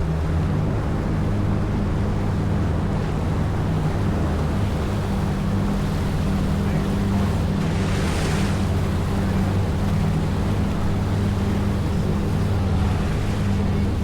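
Boat engine running steadily under way, with water rushing past the hull and wind on the microphone; a brief hiss about eight seconds in.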